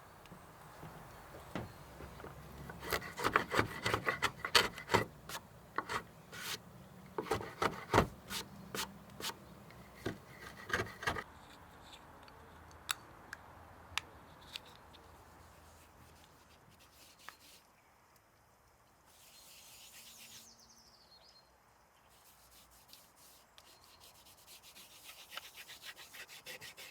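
Hand tools working oak wood: runs of quick, sharp strokes, several a second, for most of the first half and again near the end, with scattered single clicks between.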